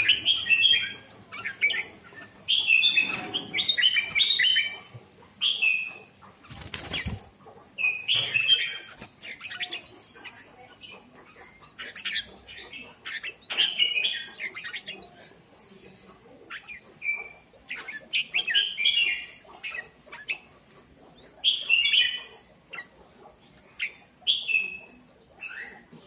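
Red-whiskered bulbuls singing in short bursts of chirpy phrases every second or two, with a brief rustle about seven seconds in.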